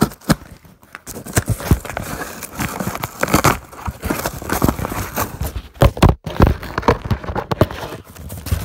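Cardboard shipping box being opened and rummaged through: irregular rustling, crinkling and knocks of cardboard and packing.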